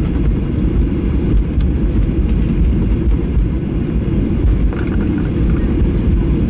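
Steady low rumble inside an airliner's cabin as it taxis after landing, with its jet engines at idle.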